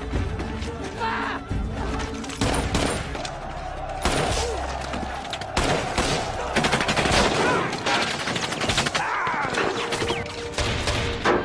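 Film battle soundtrack: dense gunfire, rapid automatic bursts and many single shots fired one after another, with a music score underneath.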